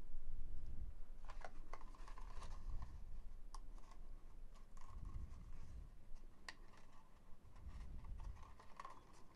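Cardstock paper being handled: scattered crackles and clicks as folded paper carrot-top pieces are pushed through slots in a paper favor box, with soft low bumps from the handling.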